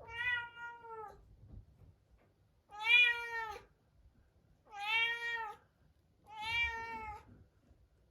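Munchkin cat meowing four times, each call about a second long with short pauses between. These are the sad calls of a cat shut alone in a separate room.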